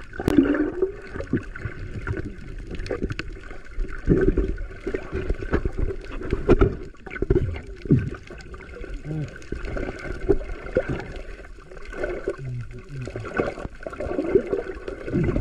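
Muffled underwater gurgling and bubbling with irregular knocks and thuds, heard through a camera held below the surface beside a fish trap net being handled.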